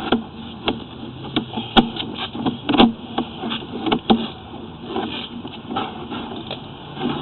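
Irregular clicks and knocks over a faint low hum, from the sewer inspection camera's push cable being fed by hand up a cast iron sewer line.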